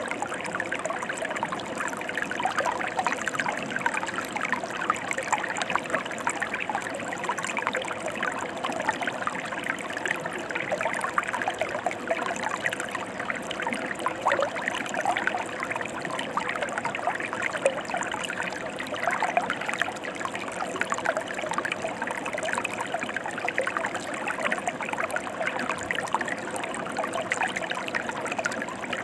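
A mountain river flowing, a steady, even rush of water that does not change or pause.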